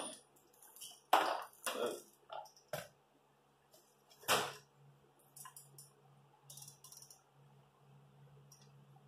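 A few short clatters and rustles of hands and tools working the truck's plastic inner fender liner, followed by faint light clicks. A low steady hum runs underneath from about halfway.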